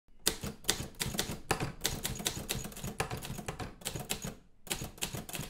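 Typewriter sound effect: keys clacking in quick, irregular succession, several strokes a second, with a brief pause about four and a half seconds in.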